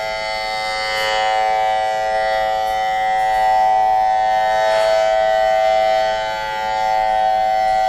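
AL-6000R outdoor warning siren sounding a loud, steady, chord-like tone with no rise or fall in pitch. Its loudness dips briefly twice, about six seconds apart.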